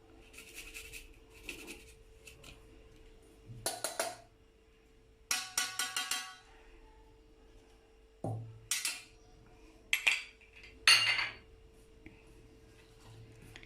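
Kitchen utensils and dishes clinking and clattering in several separate bursts, the loudest near the end, after a few soft scrapes.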